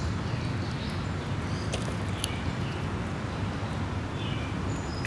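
Birds chirping now and then over a steady low outdoor rumble, with a few faint clicks.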